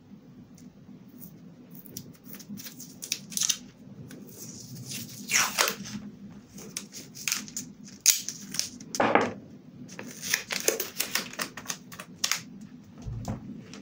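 Washi tape pulled off its roll, torn and pressed down onto a journal page covered in glossy plastic sheeting: a run of small taps and crackles, with two longer rasps about five and nine seconds in.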